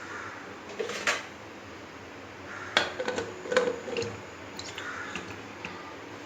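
Metal kitchen vessels and utensils being handled: a couple of sharp clinks about a second in, then a quick cluster of knocks and clatter around the middle, with a few lighter ticks near the end.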